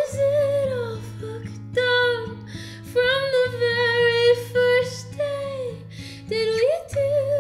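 A woman singing with acoustic guitar accompaniment, the voice holding long sustained notes over the strummed guitar.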